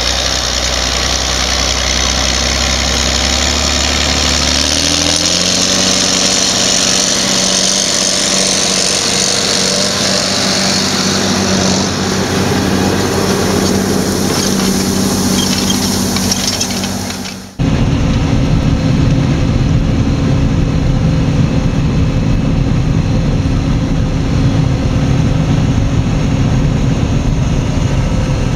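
Rába Steiger articulated tractor's diesel engine running steadily under load while pulling a plough, its note shifting about five seconds in. A little over halfway through, the sound cuts abruptly to the steady, deeper drone of a combine harvester at work, heard from inside its cab.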